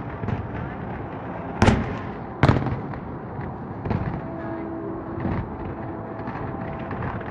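Aerial fireworks shells bursting: two loud bangs a little under a second apart about two seconds in, then fainter bangs over a steady background rumble.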